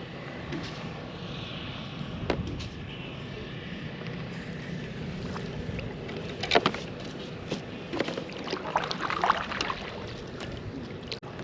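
Water lapping against a kayak hull with wind noise, and a few sharp knocks on the hull, the loudest about six and a half seconds in, followed by a run of small slaps and splashes.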